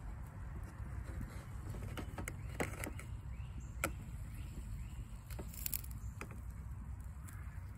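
A metal fork clinking and scraping against an aluminium camp frying pan as meatballs are turned over, a scattering of sharp clicks over a steady low rumble.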